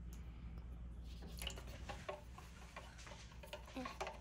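Wooden craft stick tapping and scraping against a plastic cup while stirring dye into water. It makes light, irregular ticks that start about a second in.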